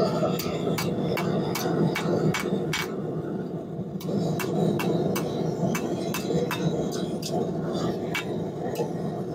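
Hammer blows on metal at an anvil, about two and a half strikes a second, with a short pause about three seconds in, over the steady low rush of the forge.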